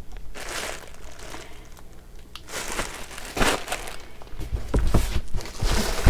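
Plastic packaging crinkling as packaged linens are handled, in three bouts of rustling: about half a second in, around three seconds in, and again from about four and a half seconds.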